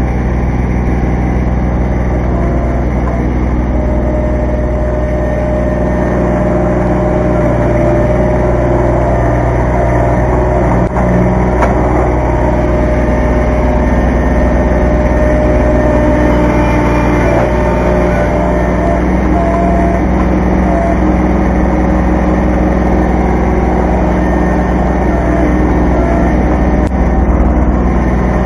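Kubota B2320 compact tractor's three-cylinder diesel engine running steadily under light load while its front loader digs and lifts. There is a single knock about eleven seconds in.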